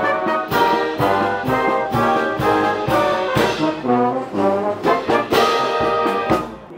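Marching band playing a brisk tune on the move: trumpets, trombones and clarinets over a steady beat. The music cuts off abruptly near the end.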